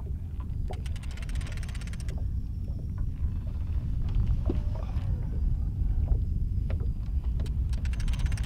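Steady low underwater rumble of water and a boat's motor, with two short spells of rapid fine clicking, about a second in and near the end.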